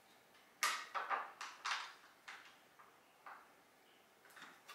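Short rustling and scraping handling sounds, clustered in the first three seconds with a few more near the end, as hands work on the parts of a mesh office chair while its screws are set by hand.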